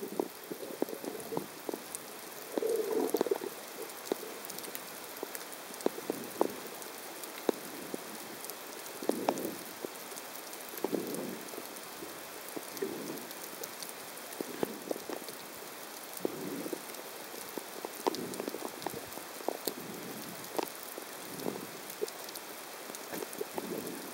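Underwater sound picked up by a camera during a breath-hold dive: a constant fine crackle of small clicks, with dull swishes of water every second or two.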